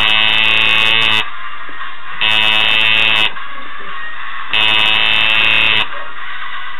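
Electric tattoo machine buzzing with a steady, low, harsh pitch in three bursts of about a second each, about a second apart, as it is run and stopped while the needle works along the tattoo's outline.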